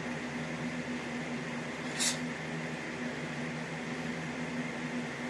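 Steady low room hum, with one short swish of a kick about two seconds in.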